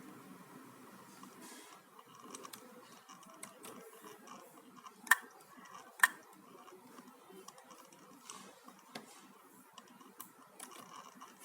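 HP notebook making faint, irregular clicking, with two much louder clicks about a second apart near the middle: the persistent clicking fault the owner cannot explain.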